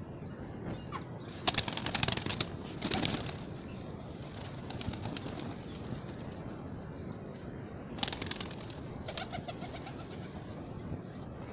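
Pigeons cooing, with short bursts of wing flapping at about a second and a half, around three seconds and about eight seconds in.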